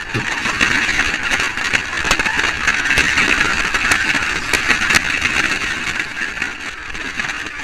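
A slot car's small electric motor and gears whirring steadily, heard from a camera riding on the car, with scattered clicks and rattles as it runs along the track.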